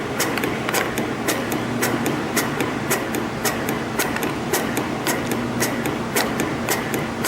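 YHM CF-series CNC spring coiling machine running, forming small conical springs from 0.4 mm wire. It makes a sharp, regular click about twice a second over a steady mechanical hum.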